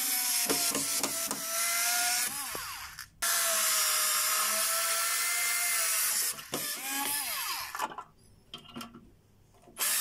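Small cordless electric screwdriver driving screws into a wall, its motor whining in separate runs: about three seconds with the pitch sagging near the end, a steady run of about three seconds, then a shorter burst with a brief dip in pitch. After a short pause it starts again at the very end.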